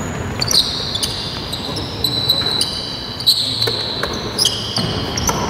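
Basketball game on a hardwood court: a ball bouncing a few times amid players' sneakers squeaking in short high squeals, in a large hall.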